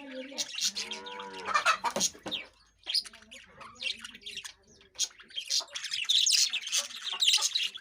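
Lovebirds chattering with rapid, shrill chirps and squawks, with brief lulls and busiest in the last couple of seconds.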